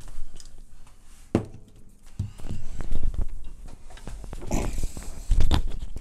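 Footsteps and handling noises: irregular knocks and rustles, with a few louder thumps near the end as objects are set down on a desk.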